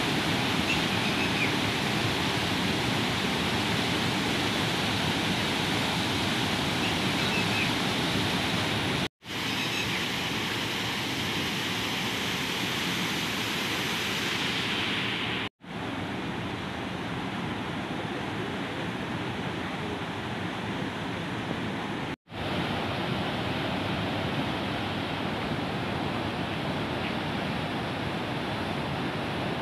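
Floodwater let out through a reservoir's lifted spillway gates, rushing over rocks as a steady wash of water noise. It cuts out for an instant three times.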